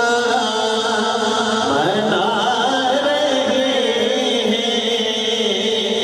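A man's voice reciting a naat, an Urdu devotional poem, into a handheld microphone. He draws out long, wavering sung notes that bend slowly in pitch.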